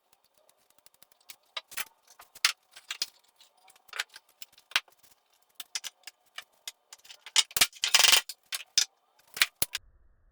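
Irregular light clicks, taps and clatters of tools and hardware being handled, busiest with a short rattle about eight seconds in, over a faint steady hum.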